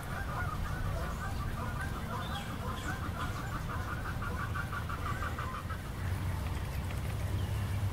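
Geese honking, a flock calling in a quick run of overlapping honks that stops about six seconds in, over a steady low rumble.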